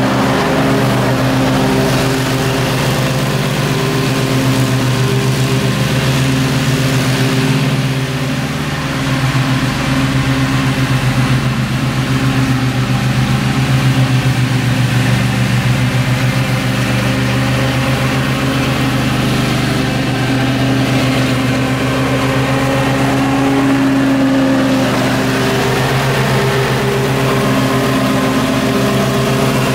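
Gravely zero-turn riding mower's engine running steadily at mowing speed while it cuts thick grass.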